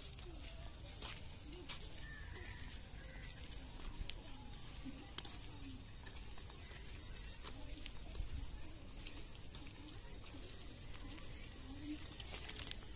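Outdoor ambience while walking along a path: a low steady rumble with scattered light clicks, and faint distant voices now and then.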